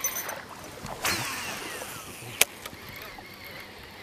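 Fishing rod and reel casting a lure: a click as the cast starts, a short swish of line with a falling whistle about a second in, then one sharp tick about two and a half seconds in.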